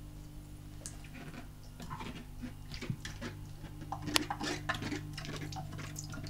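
Cat pawing at the water in a plastic pet drinking fountain: a run of small splashes and taps on the plastic, loudest about four seconds in, over the fountain pump's steady hum.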